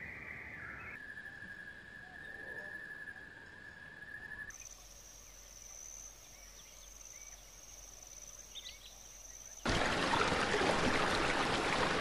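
Steady insect trills, first a mid-pitched one, then after a cut a high thin one with a few faint bird chirps. About ten seconds in, it switches abruptly to much louder splashing, rushing water as a mallard drake dabbles.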